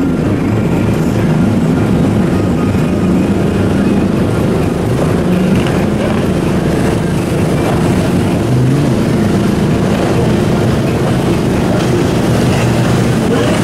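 Motorboat and jet ski engines running at speed, their pitch wavering up and down, over the steady rush of water and spray.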